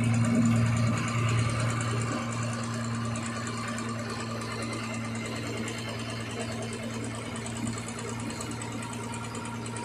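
An engine running steadily with a constant low hum, getting a little quieter over the first few seconds.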